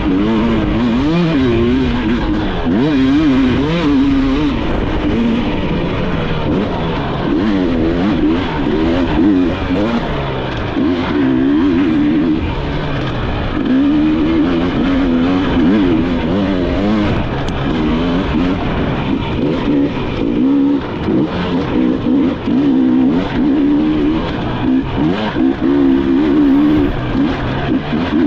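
Enduro dirt bike engine revving hard, its pitch constantly rising and falling with throttle and gear changes as it is ridden fast over a trail.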